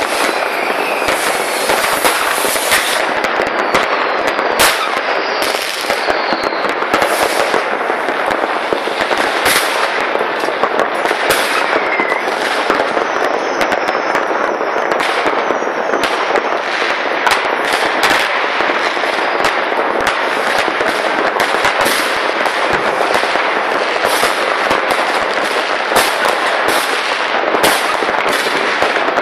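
New Year's Eve fireworks and firecrackers going off all across a town at once: a dense, unbroken crackle of many bangs, with a few whistles among them.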